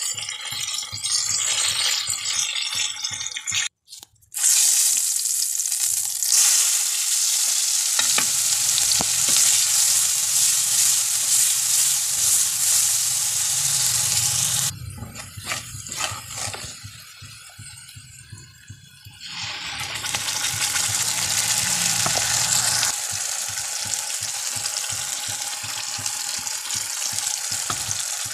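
Hot oil sizzling in a wok as food fries: first whole stuffed brinjals, then, after a brief cut to silence about four seconds in, finely chopped vegetables being stirred with a wooden spatula. The sizzle drops quieter for a few seconds midway and then comes back.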